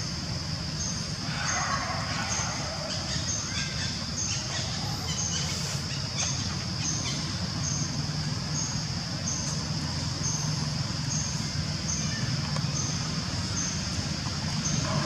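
Outdoor ambience: a steady high drone with a short chirp repeating about every two-thirds of a second, over a low steady rumble. A few faint calls come in the first half.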